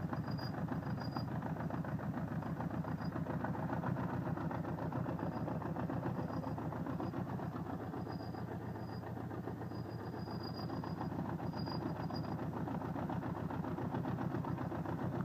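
Honda CB550's air-cooled inline-four engine running steadily, with a fast even pulse. Mixed in is a noise the owner traces by stethoscope to the cylinder-one area and takes for piston ring noise.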